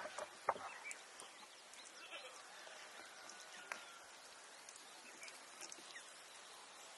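A few sharp clicks and knocks in the first second as metal skewers are worked through a raw marinated rabbit on a wooden board, over low outdoor background.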